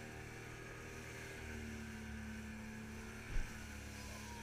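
A boat's motor running steadily, with a single sharp knock about three and a half seconds in.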